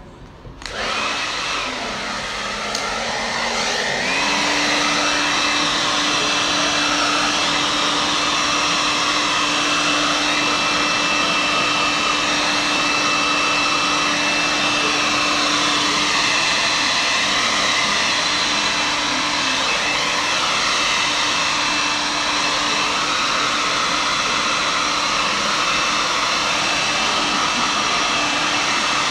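Handheld hair dryer blowing on hair being styled with a round brush. It comes on about half a second in, grows louder over the next few seconds, then runs steadily.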